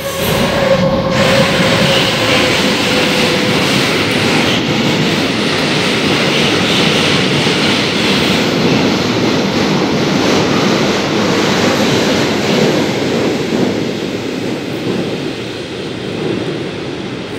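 A train running through the station close by: a loud, steady rumble of wheels on the rails. A single high tone, probably wheel squeal, rings over it for the first three seconds and then fades. The rumble eases off over the last few seconds.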